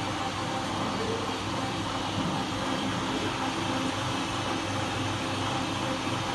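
Single-disc rotary floor machine running steadily, its motor giving a constant low hum under an even whirring noise.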